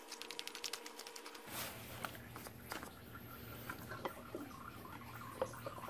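Plastic oil filter housing cap on a BMW N52 engine being spun off by hand: a fast run of faint clicks for about a second and a half, then scattered faint taps and scrapes as the cap is worked loose and lifted.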